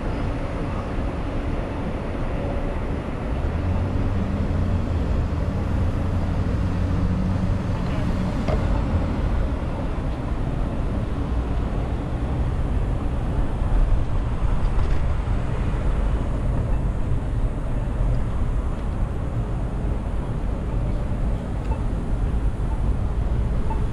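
Steady city street and traffic noise heard while riding a bicycle, with a vehicle engine humming louder for a few seconds starting about three seconds in.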